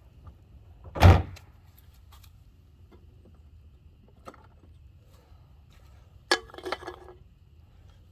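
A loud thud about a second in, then near the end a sharp crack followed by a brief clatter and ringing of aluminium soda cans used as bowling pins, knocked over by a BB gun shot.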